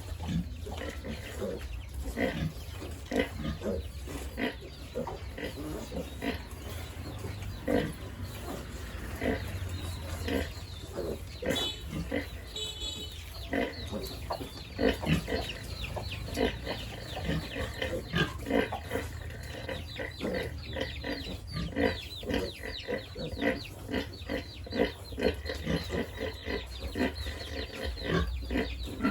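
Pigs grunting over and over in short, irregular grunts, with a brief high-pitched squeal about twelve seconds in.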